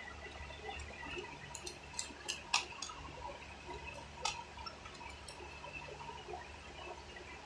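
Close-up eating sounds: a handful of short, sharp clicks and smacks from a spoon on a foil food tray and from chewing, clustered from about one to three seconds in and once more about four seconds in, over a low steady hum.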